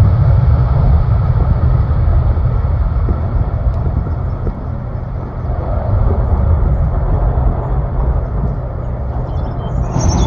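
Twin jet engines of an easyJet Airbus A320-family airliner at take-off thrust: a loud, steady, low rumble as it lifts off a wet runway and climbs away.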